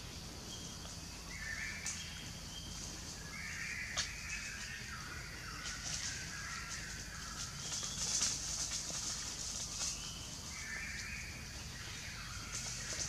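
Outdoor natural ambience: scattered chirping calls over a steady high hiss, with a few sharp clicks.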